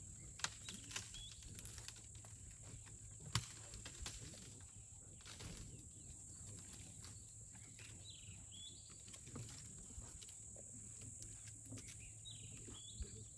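Elephants browsing in bush: scattered snaps and crackles of twigs and leaves as they pull at branches, the loudest about half a second and three and a half seconds in. Under them runs a steady high insect drone, with a few short bird chirps near the end.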